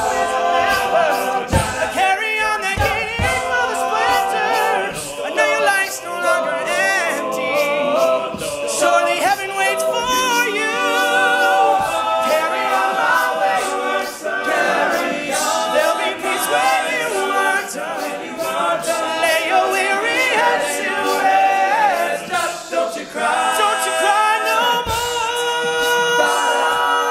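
Male a cappella group singing in close harmony with no lyrics, the voices standing in for the rock band's instrumental parts over a steady percussive beat.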